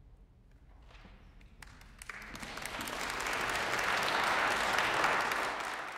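Audience applauding at the end of a choral piece: a few scattered claps about a second in, swelling into full applause, which starts to fade near the end.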